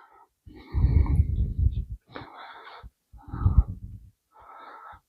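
A cloth towel with polishing compound rubbed side to side over the painted metal front plate of a typewriter: four scratchy swishing strokes, the ones about a second in and past three seconds heavier.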